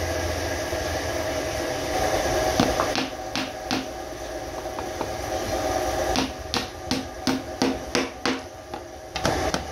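A hammer driving a small nail into a laminated wooden panel: a quick run of light, evenly spaced blows, about three a second, starting a little past the middle, with a few more near the end. A steady hum runs underneath.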